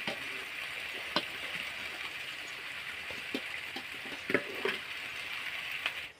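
Steady frying sizzle from a kadhai of oil and spice paste as raw jackfruit pieces are ladled in, with a few sharp clinks of a metal ladle against a steel bowl.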